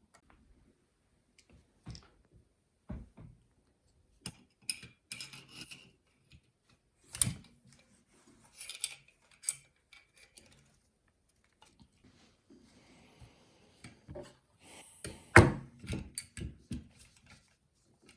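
Scattered clicks, taps and brief scraping of small metal parts and tools being handled during reassembly of a Haenel 310 air rifle. A sharp knock about fifteen seconds in is the loudest.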